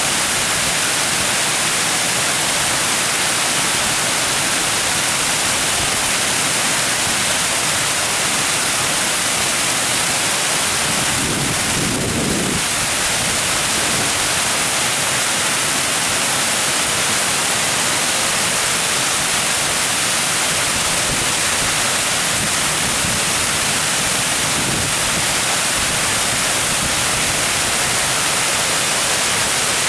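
Water rushing steadily over a weir in a constant hiss, with a brief deeper swell about twelve seconds in.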